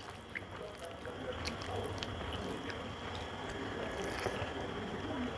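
Fingers mixing rice with spinach ghonto on a metal plate, making soft squishes and scattered small clicks, then a mouthful being chewed.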